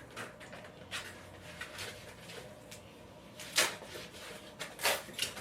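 Packing foam and the animatronic's parts being handled and pulled from a tightly packed box: scattered rustling and small clicks, with a sharp knock about three and a half seconds in and another just before the end.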